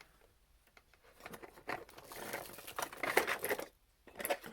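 Packing material crinkling and rustling, with small clicks, as items are handled and lifted out of a box. It starts about a second in and stops shortly before the end.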